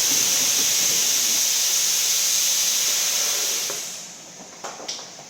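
Pressurised gas hissing out of a kitchen hood fire suppression system during a discharge test, steady and loud, then dying away about four seconds in. A couple of faint clicks follow.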